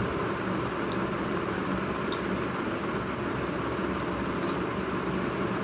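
Steady background hum and hiss of room noise. A few faint clicks of someone eating rice by hand are heard about one, two and four and a half seconds in.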